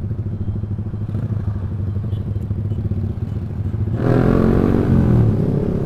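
Motorcycle engine and exhaust under way, running steadily, then growing suddenly louder about four seconds in as the engine is opened up.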